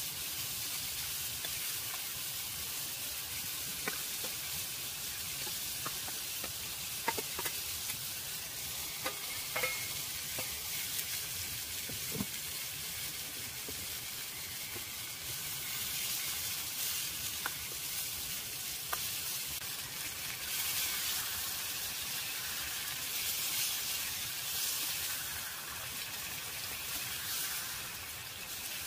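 Vegetables frying in a small pan over a wood fire, sizzling steadily and being stirred with a spoon. A few sharp clicks come in the first half, and the sizzle grows fuller in the second half.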